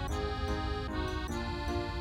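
Background music: a melody of held, pitched notes changing every fraction of a second, over a low rumble.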